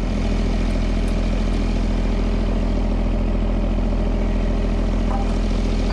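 Log skidder's diesel engine idling steadily, warming up just after a cold start following a winter of sitting.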